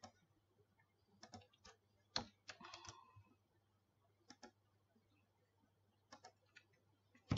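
Faint computer mouse and keyboard clicks, scattered singly and in small quick groups with short pauses between.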